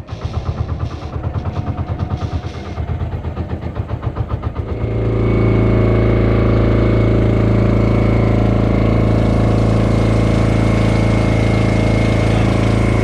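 Outrigger boat's engine running, with a pulsing chug for the first few seconds. About five seconds in it goes to a louder, steady drone.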